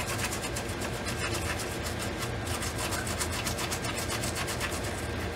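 Stiff PCB brush scrubbing a circuit board in many quick, even strokes, cleaning off corrosion and leaked electrolytic-capacitor residue.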